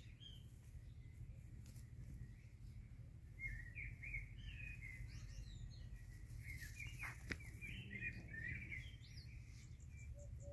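Small birds chirping and twittering in two runs, about three seconds in and again from about six to nine seconds, over a faint low steady rumble. A single sharp click comes about seven seconds in.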